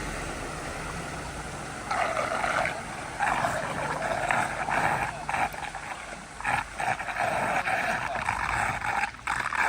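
Floodwater rushing and gurgling into a street drain. It runs steadily at first, then comes in irregular surges about two seconds in.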